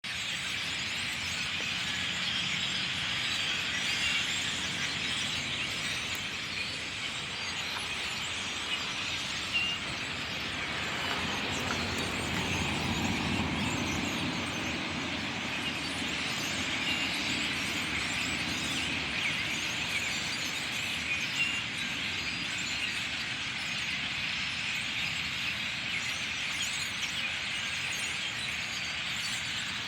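Dense, continuous chattering of a large flock of birds, many small calls overlapping. A low rumble swells and fades about midway.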